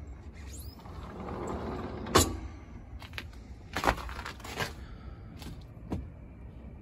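Outdoor background with a low steady rumble and a few sharp clicks or knocks, the loudest about two seconds in.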